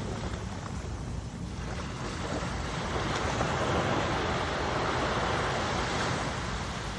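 Sea waves washing onto the shore: a steady surf wash that swells a couple of seconds in, peaks midway and eases off near the end.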